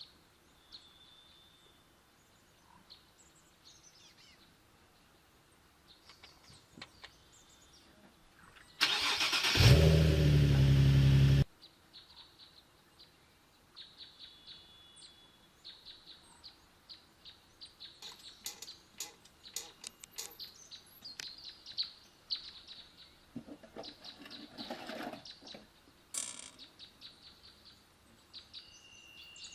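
Nissan 370Z Nismo's V6 engine cranked by the starter and catching, running for about two seconds before it cuts off suddenly. Birds chirp around it.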